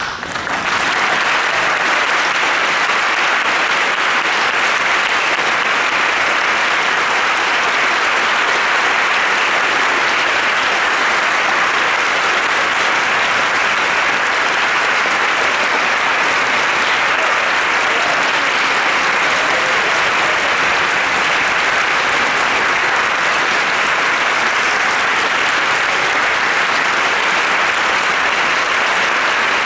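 Concert audience applauding, a dense, even clapping that rises quickly at the start and then holds steady without a break.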